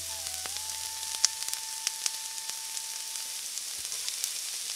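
Cubed capsicum, onion and tomato in sauce sizzling on low heat in a non-stick frying pan: a steady hiss scattered with sharp crackling pops, the sharpest about a second in.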